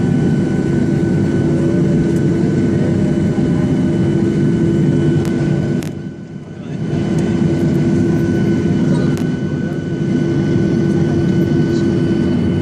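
Jet engine noise heard inside the cabin of a Boeing 737-800, from its CFM56 turbofans: a loud, steady low rumble with a steady whining hum above it. The level dips briefly about six seconds in.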